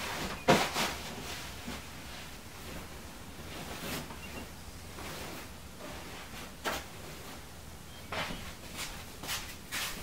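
Bedding rustling as a bed is made: a duvet and sheets pulled and smoothed, with a sudden loud burst about half a second in and a run of short rustles and soft knocks near the end.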